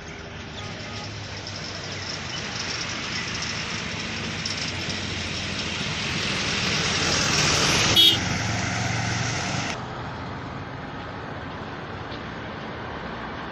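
A road vehicle passing close by, its engine and tyre noise getting louder for about eight seconds, with a brief horn toot as it goes by, then dropping away.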